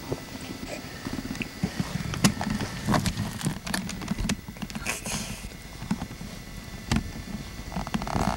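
Camcorder handling noise: irregular knocks, taps and rubbing close to the microphone as a crawling baby reaches for and grabs the camera.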